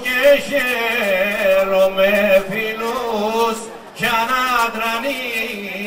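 Choir of Cretan men singing unaccompanied, a slow ornamented melody with long held notes over a low sustained note, with a brief breath between phrases a little before the middle.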